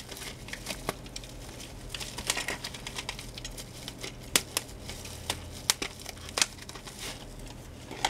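Plastic bubble wrap crinkling and crackling as it is cut open with a utility knife and unwrapped by hand, with many scattered sharp clicks.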